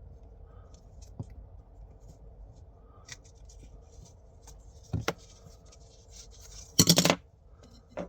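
PTFE thread tape being pulled off its roll and wrapped around a threaded pipe fitting: light rubbing and handling sounds, a thump about five seconds in, and a louder short rasp about seven seconds in.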